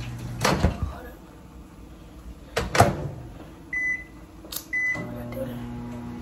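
A microwave oven being set and started: two knocks of handling and the door, then two short high keypad beeps about a second apart. The microwave starts up with a low hum just after the second beep.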